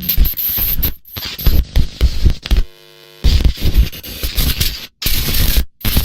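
Loud, harsh crackling noise, like broadcast static and signal glitching, that cuts in and out abruptly. A short buzzing tone comes through about halfway.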